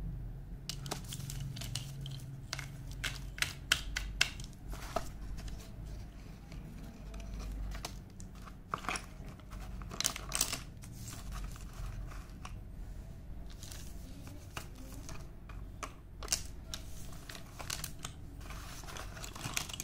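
Cheeta slate pencils clicking and clattering against one another and their cardboard box as they are handled and packed, with rustling of the paperboard box, over a low steady hum.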